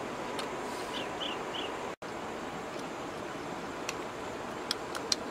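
Steady outdoor background noise with three short high chirps about a second in; after a brief break, a few sharp clicks of dogs chewing food.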